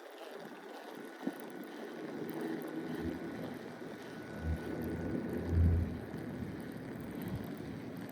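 Wind buffeting the microphone outdoors: a low rumbling haze with irregular gusts, the strongest about four and a half and five and a half seconds in.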